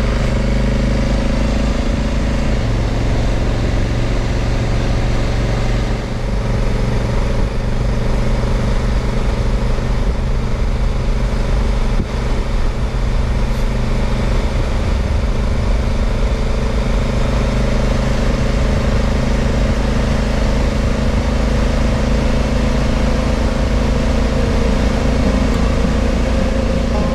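Honda Africa Twin's 1,100 cc parallel-twin engine pulling steadily at road speed, under a constant rush of wind noise on the handlebar-mounted camera's microphone.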